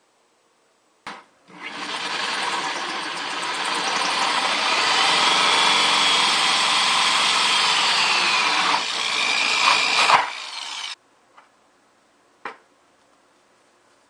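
Corded electric drill with a 2¼-inch hole saw cutting through the wall of a plastic 5-gallon bucket, running for about nine seconds; the whine drops in pitch near the end of the cut, and it stops suddenly. A click comes just before it starts and a couple of faint clicks follow.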